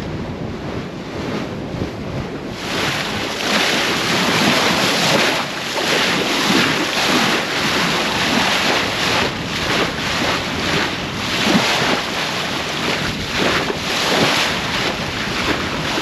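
Bow wave rushing and splashing along a sailboat's hull as it moves through the water, with wind buffeting the microphone. The rush grows louder about two and a half seconds in and surges unevenly.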